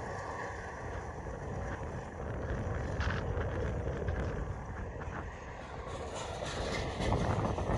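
Approaching Canadian National freight train: a steady low rumble of diesel locomotives and wheels on rail, mixed with wind on the microphone, growing a little louder near the end as the locomotives come close.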